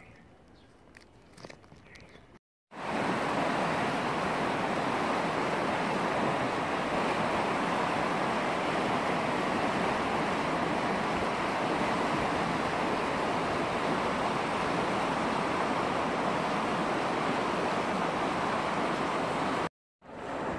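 Fast-flowing river water rushing in a steady, even wash of noise. It starts abruptly about three seconds in, after a couple of seconds of faint handling sounds, and breaks off briefly near the end.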